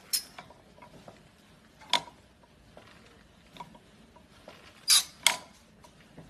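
Sharp metallic clicks and clanks from the hand-pump lever of a 12-ton manual hydraulic hot press as it is worked to build pressure. They come as single clicks about two seconds apart, then two in quick succession a little before the end.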